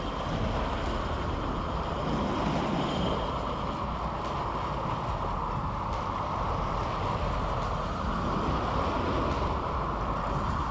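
Steady rushing of wind on the microphone mixed with small waves washing against shoreline rocks, an even noise without rhythm that stays at one level throughout.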